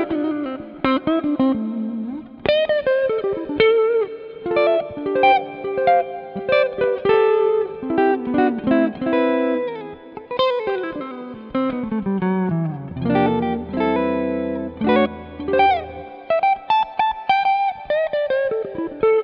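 Sqoe SEPRS 900 electric guitar played clean on its neck humbucker: single-note lines with sliding and bent notes, mixed with chords.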